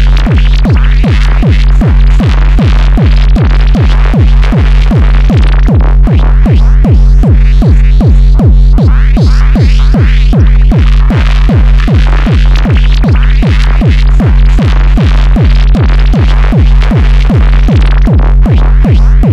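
Electronic dance music: a fast, steady kick drum on every beat over a held deep bass note, with synthesizer sounds above.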